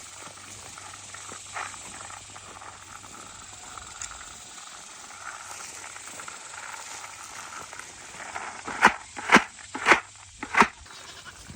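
Livestock bleating: four short, loud calls in quick succession near the end, over a faint steady hiss.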